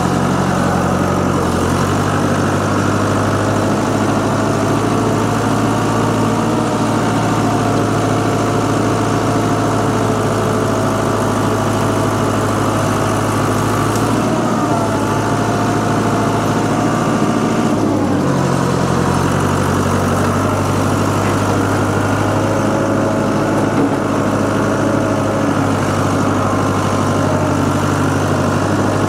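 Old Case construction tractor's engine running steadily while clearing brush, its pitch dropping and picking back up a few times as the load changes.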